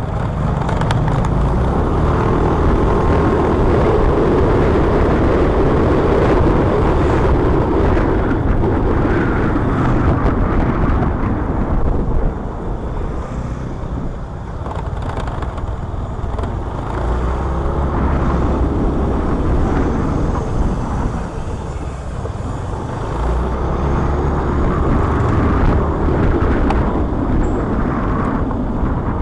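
Motorcycle engine running while riding through traffic, with road and wind noise. The engine pitch rises and falls a few times as it speeds up and slows.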